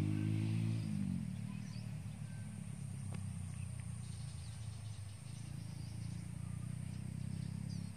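A small engine running steadily, its pitch dropping about a second in and then holding; faint bird chirps sound over it.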